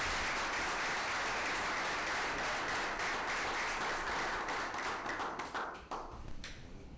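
A small crowd applauding: a dense, steady clapping that thins out and dies away about six seconds in.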